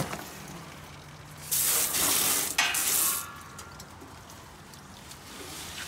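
Garden hose spraying water into a gas grill's metal firebox, rinsing out coil cleaner: a loud hiss of spray for nearly two seconds midway, briefly broken once. A short click comes right at the start.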